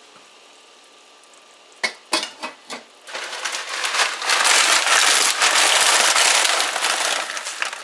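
A few sharp clinks as a glass pot lid is lifted off a pan of boiling water. From about three seconds in, a loud crackly rustle follows as a plastic packet of dry chowmein noodles crinkles and the noodles are poured into the boiling water.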